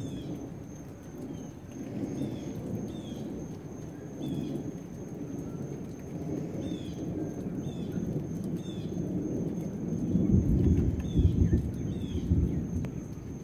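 Thunder rumbling, long and low, swelling louder about ten seconds in, under a dark storm sky.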